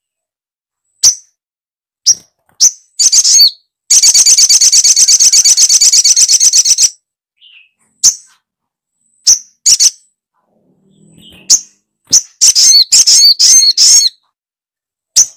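Recorded lure call of the sogok ontong bird (little spiderhunter). Sharp, high single chips come every second or so, then a fast rattling trill of about ten notes a second lasts about three seconds. More scattered chips follow, and a burst of rapid chattering calls comes near the end.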